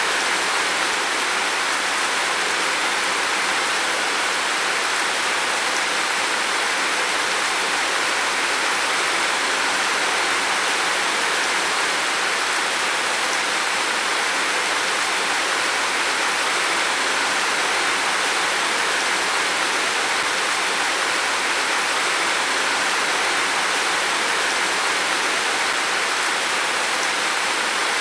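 Heavy rain falling steadily on a roof, a dense even hiss with no breaks.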